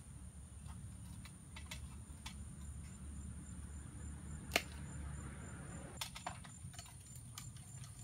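A few sharp clicks, with one louder pop about halfway through, as the strapped box hive is worked loose from the tree branch. Underneath runs a steady high chirring of night insects and a low steady hum.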